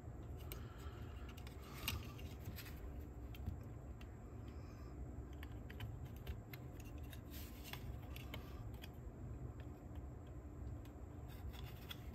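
Faint, scattered small clicks and taps of a plastic mechanism and a slim metal tool being handled while a rubber drive belt is worked around a shaft, with two sharper clicks about two and three and a half seconds in, over a low steady hum.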